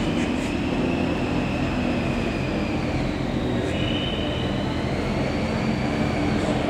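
Steady low rumble of a large indoor hall, with a faint high whine drifting slowly in pitch.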